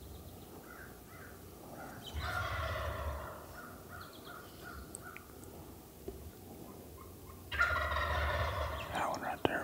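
A Merriam's wild turkey gobbler gobbling twice, each a rattling gobble about a second long, about 2 seconds in and again near the end.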